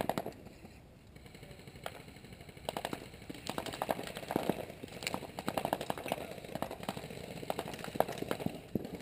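Airsoft guns firing in short rapid bursts: a few sharp pops early, then from about three seconds in a near-continuous crackle of shots in quick clusters.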